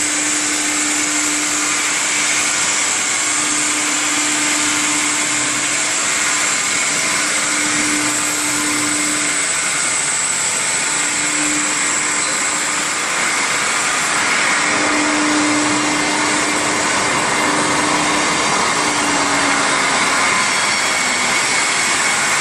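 Stone CNC router's spindle running at high speed: a steady whine over a hiss, with a mid-pitched tone that fades in and out.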